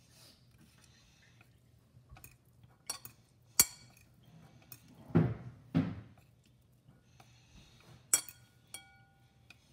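Metal fork clinking and scraping against a ceramic bowl as instant ramen noodles are tossed: a few sharp clinks, two duller knocks about five seconds in, and a clink near the end that rings on for about a second.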